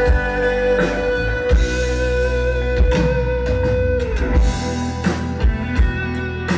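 Live rock band playing an instrumental passage: electric guitars and bass over a drum kit. A long held lead note sustains and then bends down about four seconds in.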